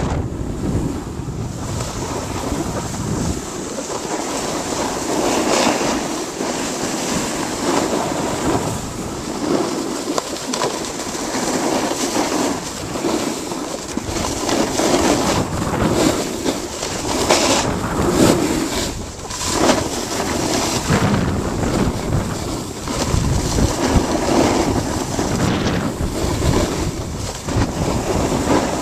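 Wind rushing over the microphone while riding fast downhill, mixed with the scraping hiss of edges carving packed snow.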